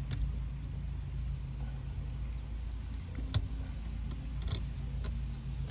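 A few light clicks and taps from a retaining clip being worked down a GM steering column shaft with hand tools, the sharpest about three and a half seconds in, over a steady low hum.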